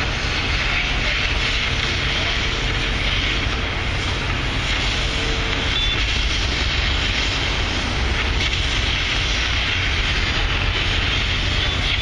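Steady low rumble and hiss of city street noise, traffic and site machinery, with a faint whine coming and going.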